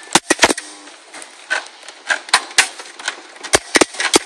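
Irregular sharp clicks and knocks of a CD-ROM drive being pushed and jiggled against the metal drive bay of a PC case, with three quick knocks at the start and scattered single ones after.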